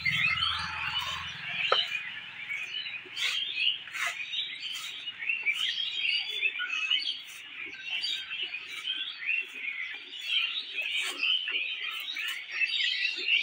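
Many small birds chirping together without a break. Behind them, short regular hissing strokes of milk squirting into a steel bucket as a cow is milked by hand.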